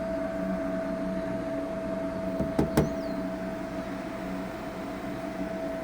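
Pool heating equipment running with a steady hum on the gas-fired side of a Pentair hybrid pool heater, which is firing in heat-pump-only mode: a communication fault between the heater's modes. Two sharp clicks come about two and a half seconds in.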